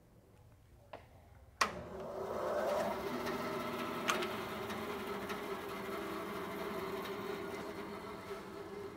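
Click of the JET bandsaw's switch about a second and a half in, then its motor spins up and settles into a steady running hum. The blade is freshly tracked and the saw is running fine.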